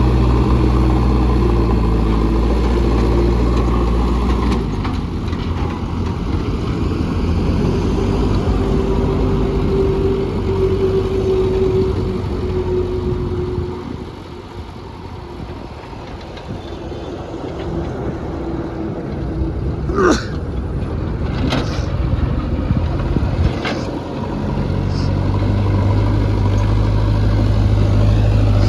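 JCB 3DX backhoe loader's diesel engine running. It is loud at first, eases off about halfway, and comes back to full loudness near the end. A steady higher whine holds for a few seconds in the first half, and a few sharp knocks and clanks sound during the quieter stretch.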